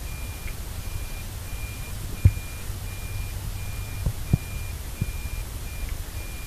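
Toyota Prius in-cabin reverse warning beeper repeating a single high beep, about one and a half beeps a second, the constant beeping it gives while the car is in reverse. A few short knocks, the loudest about two seconds in, over a low steady hum.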